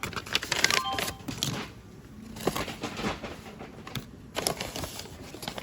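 Clicks, taps and rustling of items and packaging being handled at a shop checkout counter during payment. The sounds come in quick clusters, busiest in the first second and a half, with a short faint tone about a second in.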